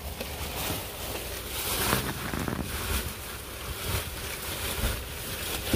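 Rummaging through a plastic bag of clothes: irregular rustling and handling noises over a steady low rumble, with a sharper knock near the end.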